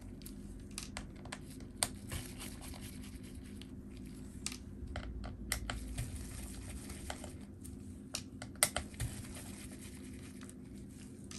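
Faint scattered clicks and rustles from a precision screwdriver and nitrile-gloved hands working at the trackpad screws inside an opened MacBook Air, over a steady low hum.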